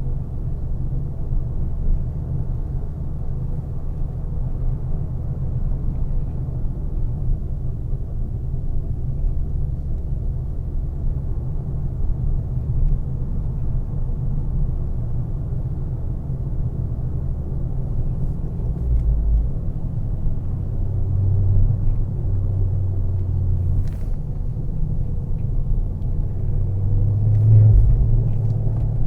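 Turbocharged car's engine and road rumble while cruising, a steady low drone that swells briefly near the end.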